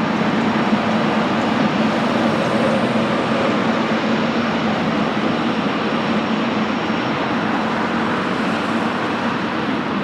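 Jet engine noise from a landing airliner: a steady, loud, dense wash of sound with a low hum underneath, easing off slightly near the end.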